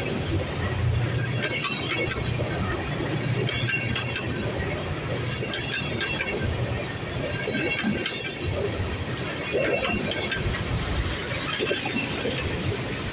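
Freight train of tank cars rolling past close by: a steady rumble of steel wheels on rail, with recurring clatter and clicks as the wheel sets go by.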